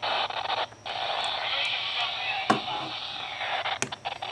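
Steady hiss of FM radio static from a two-way radio's speaker, with two sharp clicks about two and a half and nearly four seconds in.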